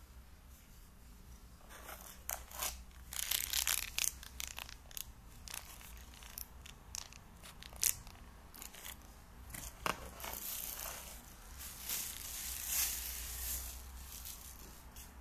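Clear plastic packaging crinkling and rustling as a small zip bag and a plastic-wrapped flashlight are handled, with irregular crackles and small handling clicks. It starts about two seconds in and is loudest in bursts a few seconds in and again near the end.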